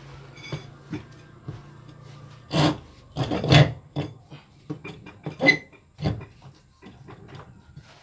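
Irregular scraping and rubbing with sharp knocks from hands working on a washing machine, loudest in a cluster of rasping strokes a few seconds in. A low hum sits under the first couple of seconds.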